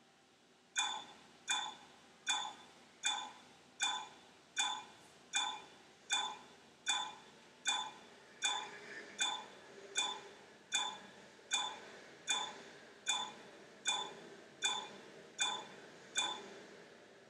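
A steady clock-like ticking, about four ticks every three seconds, each tick sharp with a brief bright ring. It starts about a second in and stops shortly before the end.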